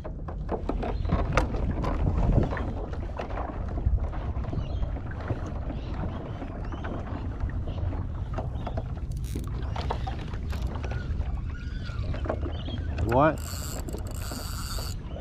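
Hobie kayak's pedal drive clicking and creaking as it is pedalled, with water washing on the hull. Near the end there is a short high buzz lasting about a second and a half.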